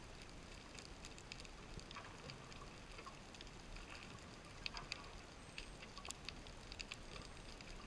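Faint underwater reef noise: scattered crackling clicks over a steady hiss.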